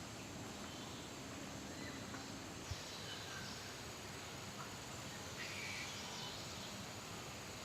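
Steady outdoor background noise, with a few faint short high-pitched calls and a small knock just before the three-second mark.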